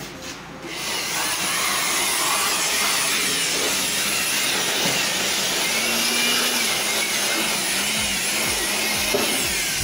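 Handheld electric blower running steadily, blowing dust out of an open desktop computer case; it comes up to full speed about a second in.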